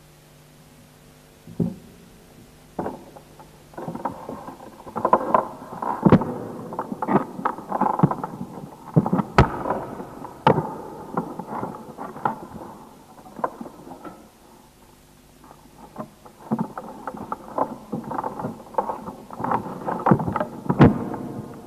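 Irregular clattering of knocks, scrapes and thumps, in two busy stretches, with a few sharp loud knocks standing out. A low steady hum comes first, before the clatter begins.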